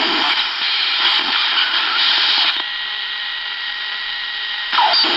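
AM radio hiss carrying electrical interference picked up from a nearby cell phone's circuitry, the sign that the phone is powering up. The noise drops about halfway through and comes back up near the end.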